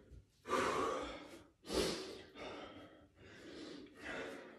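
A man breathing hard from the exertion of burpees: about five heavy, rough breaths in a row.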